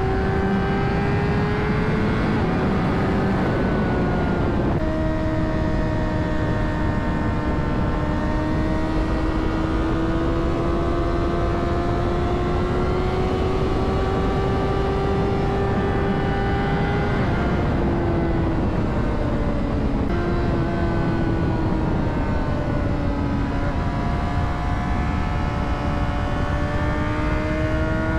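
Honda CBR600RR's inline-four engine running under way, its note climbing slowly through each gear with sudden pitch drops at gear changes about 5 s in, near 17 s and near 23 s. A steady rush of wind and road noise sits underneath.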